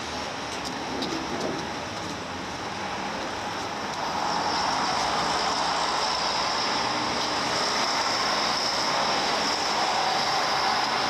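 Street traffic noise, growing louder about four seconds in as a vehicle's engine comes close and stays steady.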